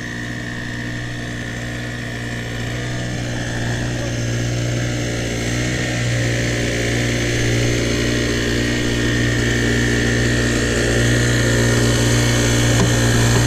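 Small boat motor running steadily with an even hum that slowly grows louder as the boat drives ahead.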